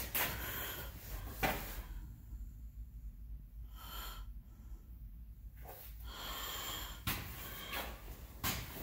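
Breathing close to the microphone with handling noise, and a few light knocks.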